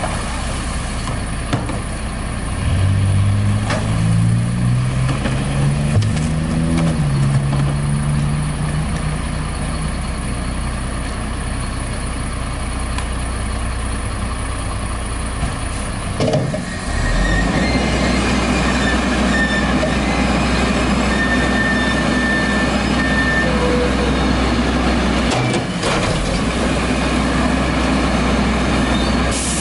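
White GMC garbage truck's diesel engine idling, with a few knocks as trash cans are emptied into its front bucket and the engine note rising in steps for a few seconds. About halfway through, the engine revs up and holds a steady, louder note with a faint hydraulic whine as the Heil FL's arms raise the loaded bucket up over the cab.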